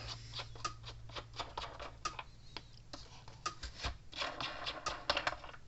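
Irregular small plastic clicks, taps and short scrapes as the control knobs are pulled off a Gallagher M800 electric fence energizer, with a brief rustle about four seconds in.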